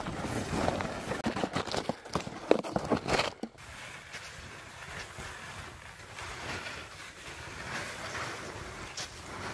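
Snowshoe footsteps crunching on packed snow in quick, uneven steps. After a break about three and a half seconds in, the crunching is fainter, with softer shuffling and hiss as the snowshoers and their sleds approach.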